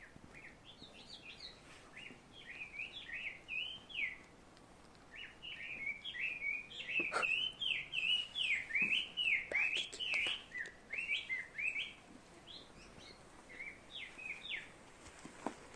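An unidentified songbird singing quick runs of short, sliding, chattering notes in three phrases with short pauses between them. The call is heard as "barbecue" (バーベキュー).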